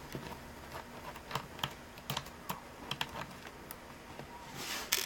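Faint, irregular small clicks and taps of hands and tools working on a laptop's plastic case during disassembly.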